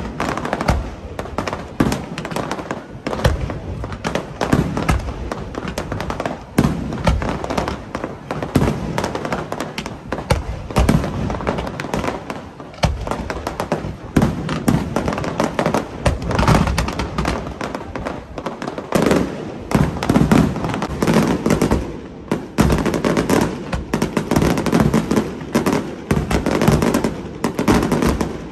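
Fireworks display: a dense, continuous run of aerial shell bursts and crackling, with bangs following each other every fraction of a second and heavier clusters in the second half.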